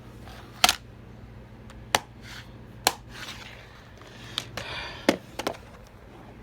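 Plastic DVD case being handled: a series of sharp clicks and snaps, spaced about a second apart and then bunched closer together near the end, with a brief rustle among them.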